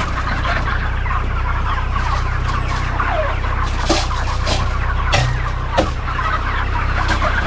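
A large flock of white broiler meat chickens clucking and peeping continuously, over a steady low engine hum, with a few sharp knocks about four to six seconds in.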